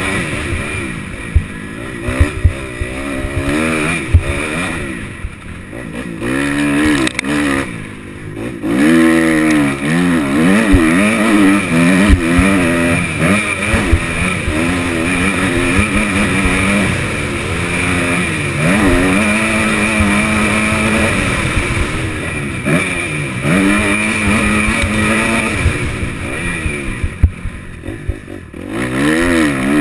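Kawasaki KX250F four-stroke single-cylinder motocross engine, heard from a helmet-mounted camera, revving up hard and dropping off again and again as the throttle is opened and closed along the track. The engine note falls away sharply about five, eight and twenty-seven seconds in, and sharp knocks break through the engine sound now and then.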